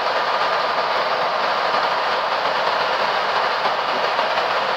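Steady rushing noise on the flight deck of a Boeing 737 MAX climbing out just after takeoff: airflow past the cockpit and the engines at climb thrust.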